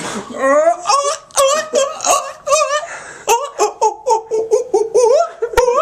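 A child laughing in a rapid string of short, high-pitched bursts, about three a second.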